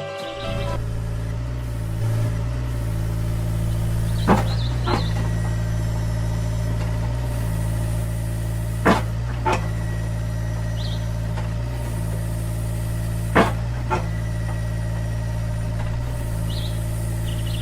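Engine running steadily at idle, a low even hum, with pairs of sharp clicks or knocks about every four to five seconds.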